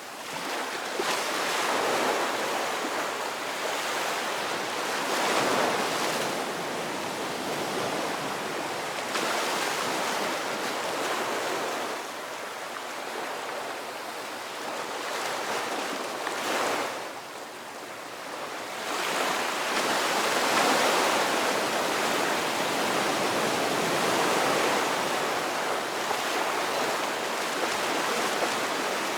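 Ocean surf: waves breaking and washing in, rising and falling in irregular swells, with a brief lull a little past halfway.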